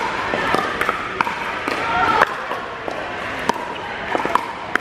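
Pickleball paddles striking a plastic pickleball during a rally: a string of sharp pops at irregular intervals, some ringing briefly in a large indoor hall, over a background murmur of voices.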